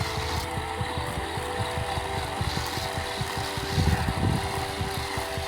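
Petrol chainsaw engine running steadily.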